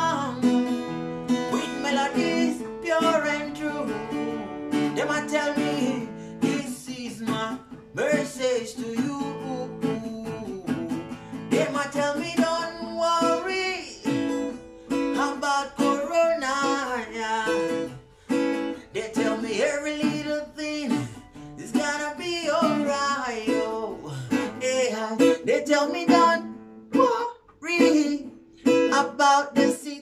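A man singing to a strummed acoustic guitar.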